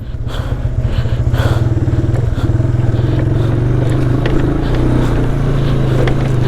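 Motorcycle engine running steadily under load on a dirt trail. It gets louder over the first second and then holds, with scattered short knocks from the rough ground.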